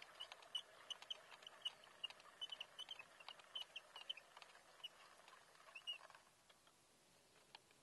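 Faint, fast, irregular squeaky ticking from a Kiwitech carried pack's spool and gearing winding in electric-fence polywire at a 4-to-1 gear ratio. It stops about six seconds in, and a single click follows near the end.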